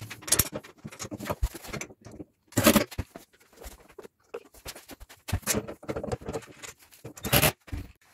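Steel plow parts and hardware being handled: irregular clicks, clinks and rattles of metal pieces, with a few louder clanks, one a little under three seconds in and another near the end.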